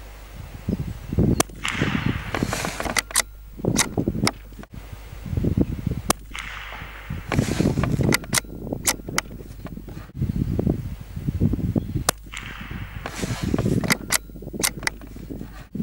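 Lithgow LA101 .22 LR rifle shots heard from downrange near the target: a series of sharp cracks.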